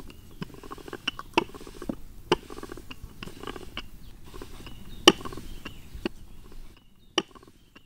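A wooden rolling pin rolls dough on a wooden board with a low rumble, among irregular sharp clicks and knocks from a spoon and a metal bowl. The rumble stops near the end, leaving one sharp clink.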